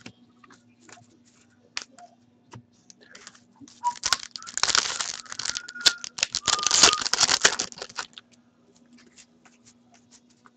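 A sealed hockey card pack's wrapper being torn open and crinkled by hand, loud and crackling for about four seconds in the middle. Before and after it come light clicks and rustles of cards being handled.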